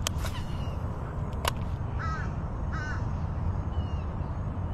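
A crow cawing twice, two short calls about two and three seconds in. A few sharp clicks come before the calls, and a steady low rumble runs underneath.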